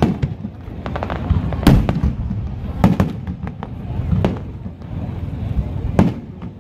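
Aerial fireworks shells bursting overhead: a string of sharp booms at irregular intervals, the loudest about two seconds in, at three seconds and near the end.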